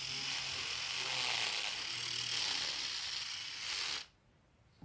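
Small electric motor turning a homemade RC truck axle and its gears, whirring and rattling steadily, then switched off suddenly about four seconds in.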